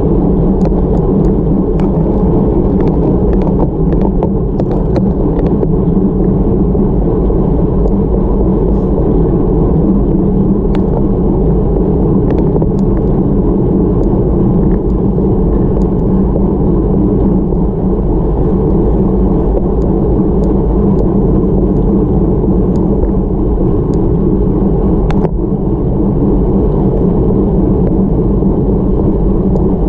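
Steady wind rush and rumble on the microphone of a camera mounted on a road bicycle climbing at about 23 to 30 km/h, with scattered faint clicks.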